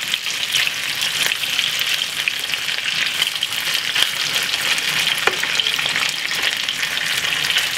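Chicken pieces sizzling steadily in hot oil in a frying pan as they brown, with crackles and a few faint clicks.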